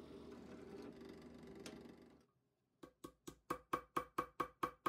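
A fast, even run of about ten sharp clicks, roughly five a second, starting a little after halfway and growing louder. Before it there is only a faint low hum.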